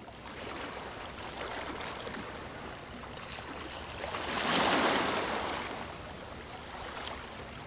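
Small waves lapping and breaking on a lake shore, with one louder wash of water a little past the middle.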